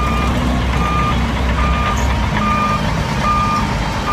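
Dump truck's warning beeper sounding one short beep about every 0.8 seconds, over the low rumble of the truck's diesel engine running while its tipper bed is raised to dump sand.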